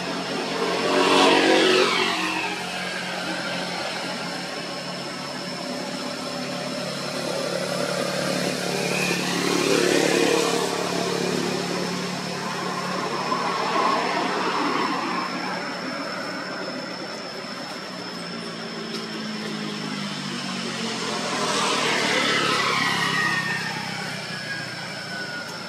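Motor vehicles passing by three times, each rising and then falling away, over a steady low engine hum and a thin, steady high whine.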